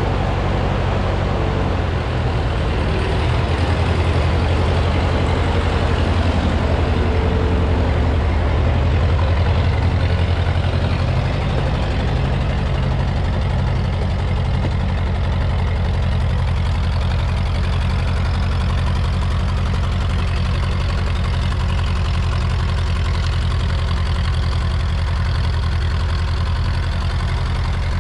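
Freshly rebuilt Ford 8N tractor's four-cylinder flathead engine running steadily. It is a little louder for the first several seconds, then settles to an even idle.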